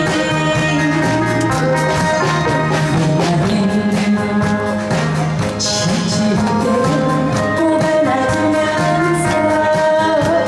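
Live band music with a steady drum beat and keyboard, a woman singing a song into a microphone over it.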